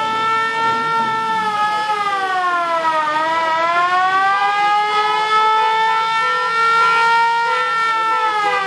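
A siren wailing, its pitch sliding slowly down and back up. It dips lowest about three seconds in, rises and holds, then falls again near the end.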